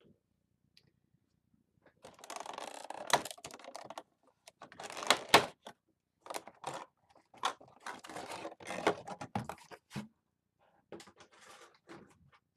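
Cardboard and plastic packaging of a Funko Pop box being handled and opened: irregular bursts of rustling and crinkling with sharp clicks, starting about two seconds in.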